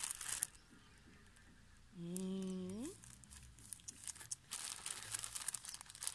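Clear plastic packaging bag crinkling as it is handled and opened: briefly at the start, then steadily over the last couple of seconds. About two seconds in, a woman gives a short hummed 'mm' that rises in pitch at its end.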